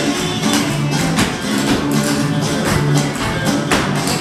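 Upbeat music with a steady beat, over a quick run of clogging taps from dancers' metal-tapped shoes striking the wooden stage.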